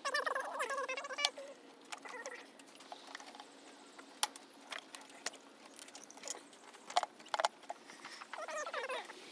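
Scattered sharp clicks and taps of hand tools and parts being handled in a car's engine bay, with a couple of louder clicks about seven seconds in.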